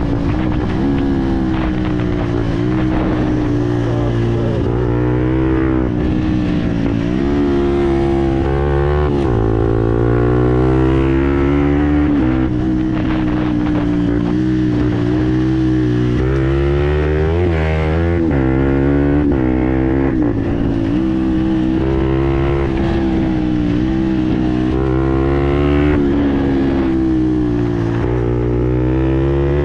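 A Fantic Performance 125 Motard's single-cylinder four-stroke engine, breathing through a GPR aftermarket exhaust, revving up and dropping back again and again as the bike is ridden and shifted through the gears.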